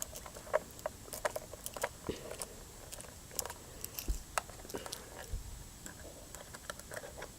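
Faint, irregular small clicks and ticks of a screwdriver working a screw out of a metal detector's housing, with light handling of the parts.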